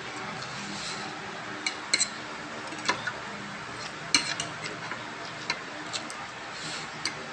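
Spoon and fork clinking and scraping against a plate of rice, a handful of sharp clicks at irregular intervals.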